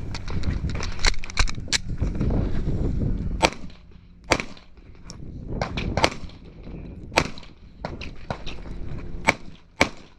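Handgun shots fired at uneven intervals during a timed course of fire: about nine sharp cracks, some in quick pairs and others a second or more apart. Low rumbling movement noise runs under the first few seconds.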